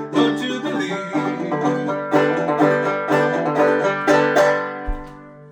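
Five-string banjo played clawhammer style in open G tuning, picking the song's closing phrase in a steady rhythm. About four and a half seconds in, the last chord is left to ring and fades away.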